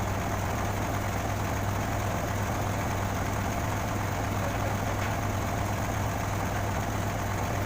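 A crane's engine idling steadily, with a low, even hum.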